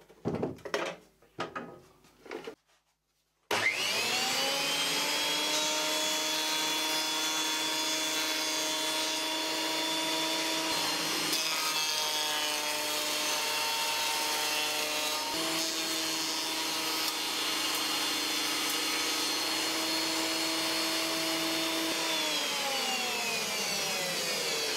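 Knocks as a JET benchtop thickness planer is set in place. The planer then starts up with a quickly rising whine and runs steadily. Its pitch sags for a few seconds under load as a board feeds through, recovers, and near the end winds down with a falling whine.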